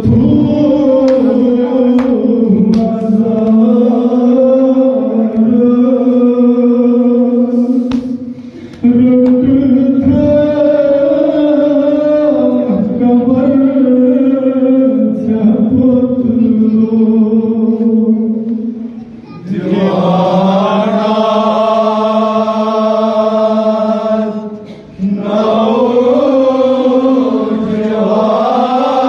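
Men's voices chanting a Kashmiri noha (Shia lament) into microphones, a lead reciter with others chanting along, in long sung phrases broken by brief pauses.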